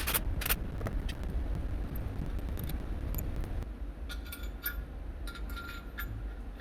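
Metal hand tools being handled: two sharp clicks at the start, then several short, ringing metallic clinks between about four and six seconds in.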